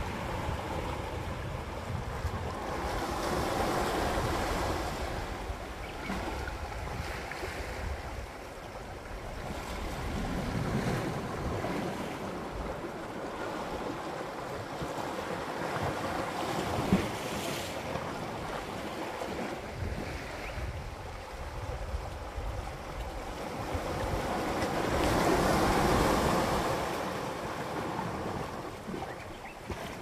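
Sea waves surging onto a rocky shore and washing back, swelling and easing in several surges, the biggest near the end.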